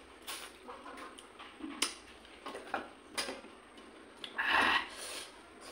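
Close-up eating sounds of a person eating rice and fish curry by hand: a string of short wet clicks and smacks from chewing, with fingers working the food on a steel plate. About four and a half seconds in comes one longer, louder noisy sound.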